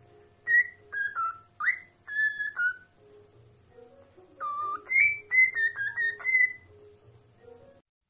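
Cockatiel whistling a short tune: two phrases of clear notes, some sliding upward, with a pause of about a second and a half between them.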